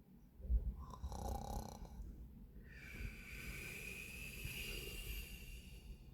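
Snoring: a short snore about a second in, then a longer breath with a whistle-like tone from about three seconds in until near the end.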